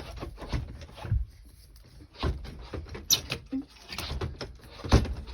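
A boat-cabin door being worked shut: scattered knocks and clunks, then a hard thump near the end. It has to be slammed to close.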